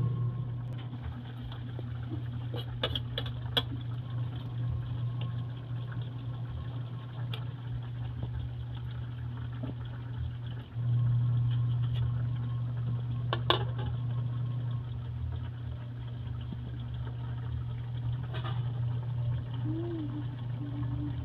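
Steady low hum throughout, with a few sharp taps of a metal spatula against an aluminium wok, loudest about thirteen seconds in.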